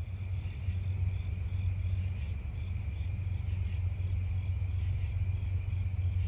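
Night insects chirping in a steady, pulsing chorus over a louder steady low rumble.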